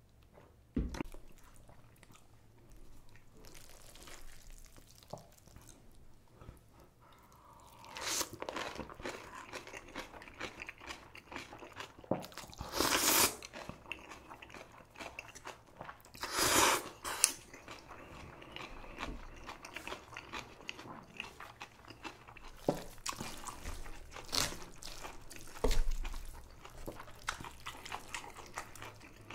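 Close-up eating sounds: a person crunching and chewing kimchi and cold noodles, with many short crisp bites and two louder bursts of about a second each near the middle.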